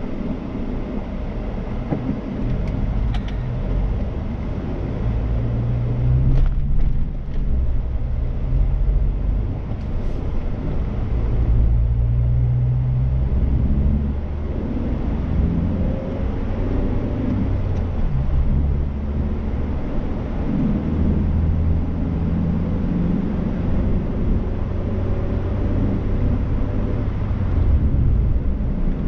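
Car interior driving noise: a low, steady engine and road rumble, with the engine tone shifting in pitch now and then as the car travels at road speed.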